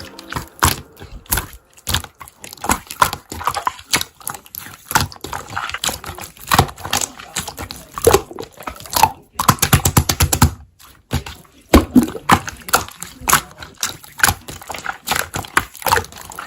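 Slime being squeezed and kneaded by hand: a continuous run of wet clicks and pops as air pockets burst, in quick clusters with brief pauses.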